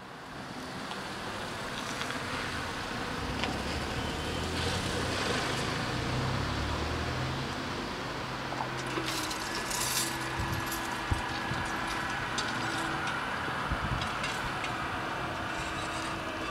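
Road traffic running past. After the crossing signal turns red, a steady electric hum from the level-crossing barrier drives starts as the booms are lowered, with a few sharp clicks.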